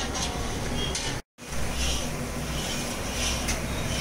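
Sugar syrup boiling and frothing in an iron wok while a spatula stirs and scrapes the pan, with a steady low rumble underneath. The sound drops out for a moment just after a second in, then carries on.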